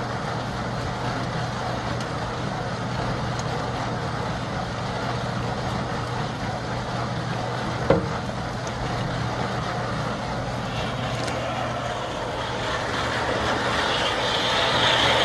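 Homemade compost trommel running: the motor-driven mesh drum turning with compost tumbling and rattling inside over a steady motor hum, with one sharp knock about eight seconds in. The rattle grows louder near the end.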